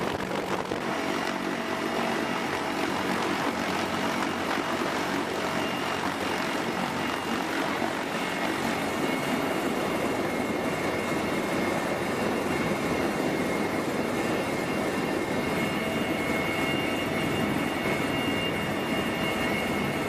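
A CH-53E Super Stallion heavy-lift helicopter's three turboshaft engines and rotors running steadily: a dense, even rumble with a steady high whine over it.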